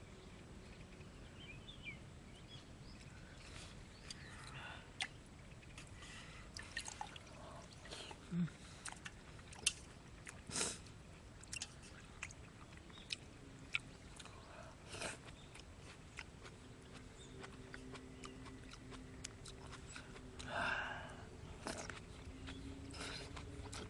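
Wood campfire crackling, with scattered sharp pops, a few of them louder near the middle. A faint steady drone joins in about halfway through.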